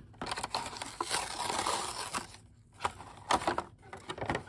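Cardboard packaging being torn and a clear plastic blister tray crinkling as it is pulled out of the box: a continuous rustle, a brief pause, then several sharp crackles near the end.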